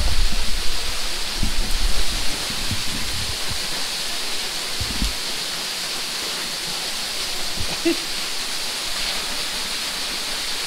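Small waterfall spilling off a rock ledge, a steady rushing hiss of falling water, with a few low thumps in the first few seconds.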